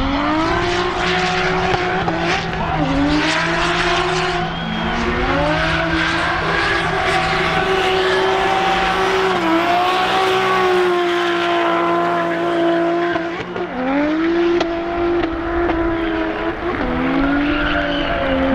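Drift cars sliding at full throttle, one a Toyota GT86 with a swapped-in turbocharged 2JZ straight-six. The engine pitch sweeps up and holds, falls back, then climbs again several times, over a steady hiss of spinning, squealing tyres.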